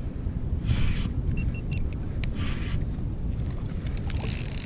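Wind rumbling steadily on the action camera's microphone aboard a kayak, with a few short hissing swishes about a second in, halfway through and near the end.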